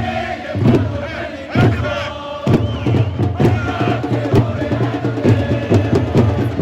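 Crowd of football supporters chanting in unison to a repeated bass drum beat.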